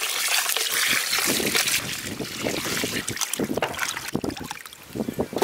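Water poured in a stream into a stainless steel bowl of raw chicken pieces, then hands rubbing and sloshing the pieces in the water with irregular splashes, as the chicken is washed.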